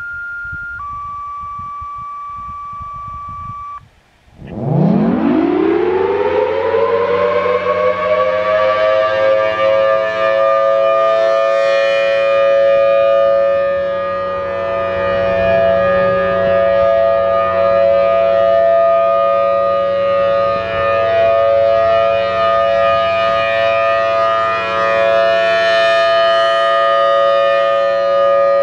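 Radio activation tones, a short tone then a longer lower one, then a Federal Signal Thunderbolt 1000T siren starting about four seconds in. It winds up in pitch over several seconds and holds a steady alert tone, swelling and fading slightly as the horn rotates.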